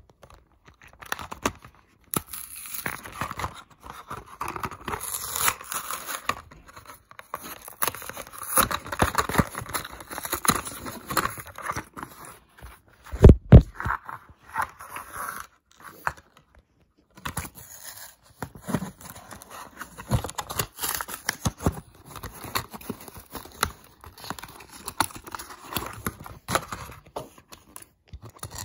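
A Hot Wheels blister pack being torn open by hand: the cardboard backing card and plastic blister tear and crinkle in repeated bursts with short pauses. A single heavy thump about halfway through is the loudest sound.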